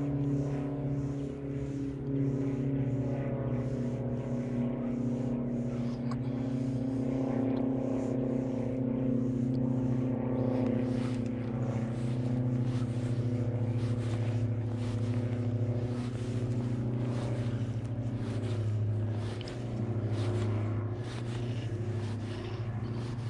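An engine running steadily, a low hum whose pitch drifts slightly up and down, with faint ticking over it in the first half.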